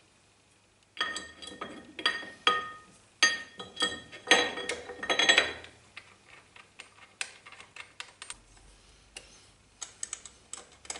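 Steel parts of a lathe carriage being handled and seated by hand: a run of metal-on-metal clinks and scrapes with short ringing notes, starting about a second in and lasting some four seconds, then a scatter of lighter ticks.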